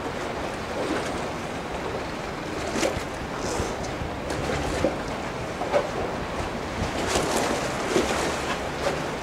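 Steady noise of wind and lapping fjord water, with a low rumble underneath and a few short, sharp slaps scattered through it.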